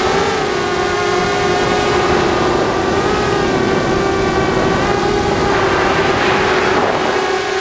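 ZMR250 FPV quadcopter's brushless motors and propellers whining at a nearly steady pitch, with wind buffeting the onboard microphone. A rush of air noise swells about six seconds in, while the quad skims low over the grass.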